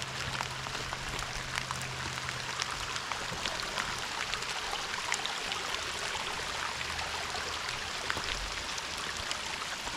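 Steady rain falling through the woods, a constant hiss dotted with many small drop ticks, with the rush of a rain-swollen stream running.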